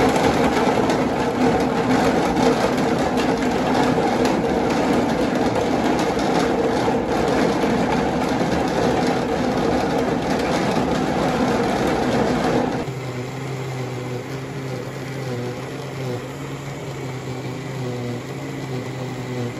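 High-speed countertop blender running at full power, pulverising chunks of fresh coconut with water into coconut milk. It cuts off sharply about 13 seconds in, leaving a quieter sound with steady low tones.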